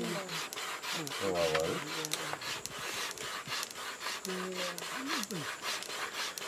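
Vine fire thong sawn rapidly back and forth against a split wooden stick held on a coconut husk, in rhythmic rasping strokes about four a second: friction fire-making, the wood heating enough to smoke.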